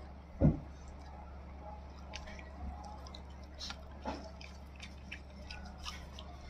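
A dog chewing and licking at a treat, with wet smacks and small clicks scattered through. There is one loud thump about half a second in.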